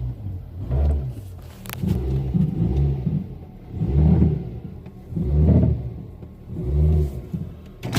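2006 Mazda 3 2.0-litre four-cylinder engine revved in about six short bursts, roughly every second and a half, while in drive with the brake held. This loads the engine against a broken front engine mount, which lets it clunk.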